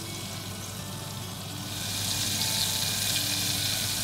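Hot oil frying with a steady sizzling hiss that grows louder a little under two seconds in.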